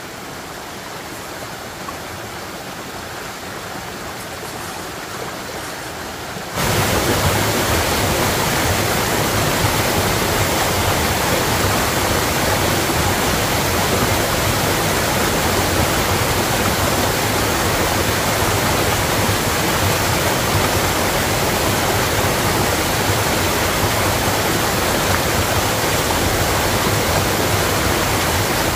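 Steady rushing noise with no rhythm or pitch, which jumps abruptly much louder about six and a half seconds in and then holds steady.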